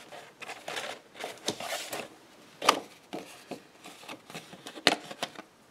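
Sheet of stamped cardstock being handled on a worktable: paper rustling, with a sharp tap about two and a half seconds in and another near the end.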